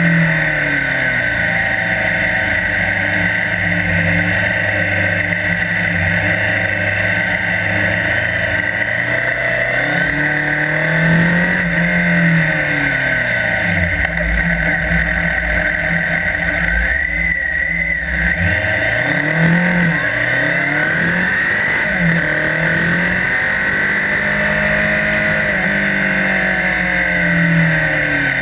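Motorcycle engine revving up and down again and again as the rider accelerates and slows, over a steady high hiss.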